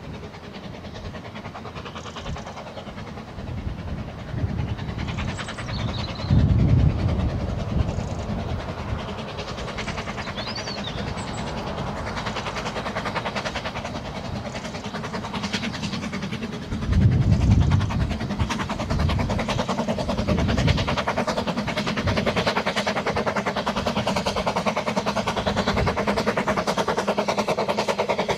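Ffestiniog Railway No. 2 "Prince", a small narrow-gauge steam locomotive, working a train of coaches with rapid exhaust beats that grow steadily louder as it approaches. Two loud low rumbles come about six and seventeen seconds in.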